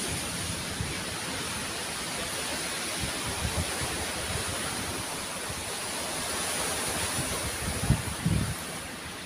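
Steady wash of surf on a stony shore, with wind buffeting the microphone in a few low thumps near the end.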